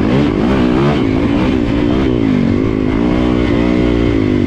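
Dirt bike engine revving up and down repeatedly as the throttle is worked.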